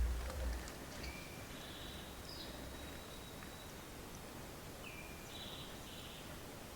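Faint outdoor woodland ambience: scattered distant bird chirps and calls, with a thin steady high tone for about a second and a half. A brief low thump right at the start, then a low rumble that fades over the next few seconds.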